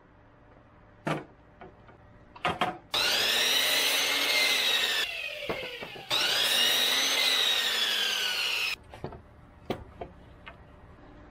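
A sliding compound miter saw cutting 2x4 lumber twice, about three seconds in and again about six seconds in, its pitch rising and then falling through each cut. Wooden boards knock against the workbench before and after the cuts.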